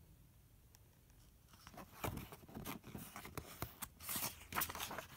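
Paper pages of a paperback picture book rustling and crackling as the book is handled and closed, starting about two seconds in with a run of uneven rustles and sharp paper clicks.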